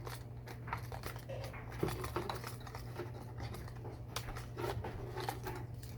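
Plastic fishing-lure packaging being handled and pried open: scattered small clicks, crinkles and rattles as a lure is worked out of its box.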